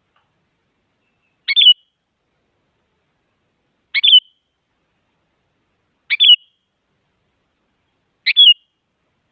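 Sooty-headed bulbul calling: a short, quick two-note call given four times, about every two seconds.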